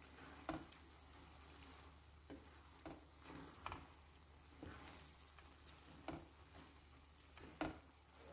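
Wooden spatula stirring bulgur pilaf with meat in a granite-coated pan, knocking against the pan about seven times at uneven intervals, the loudest near the start and near the end, over a faint sizzle.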